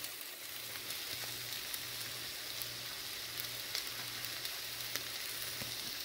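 Cut Kentucky Wonder green beans sizzling steadily in olive oil in a pan as they near done, with scattered faint pops. A low hum runs underneath.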